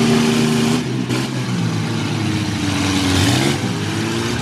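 Engines of racing pickup trucks running hard and revving, with one engine rising in pitch a little past three seconds in.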